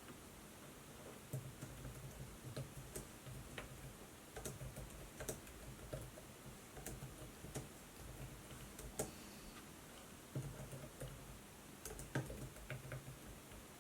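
Typing on a laptop keyboard: irregular runs of soft key clicks with short pauses between them.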